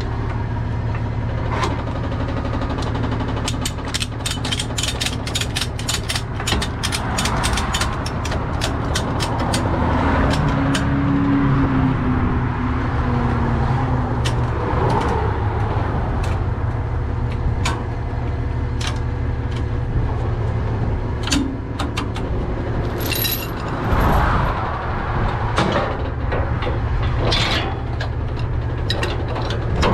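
Truck diesel engine idling steadily, with a rapid run of sharp metallic clicks and scattered clanks from the tow straps, wheel-lift hardware and chains being fastened.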